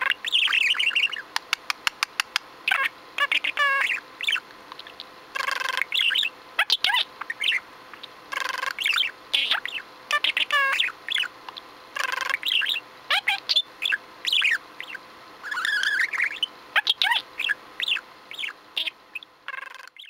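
Budgerigar chattering: a rapid stream of short chirps, clicks and warbles, mixed with mimicked human phrases such as "I love you".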